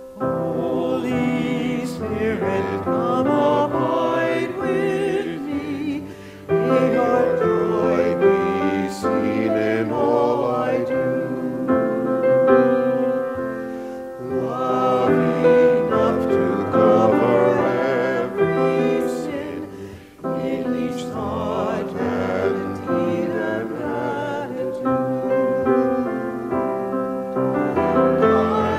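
Small mixed group of men and women singing a hymn together with piano accompaniment, in phrases with short breaks between lines.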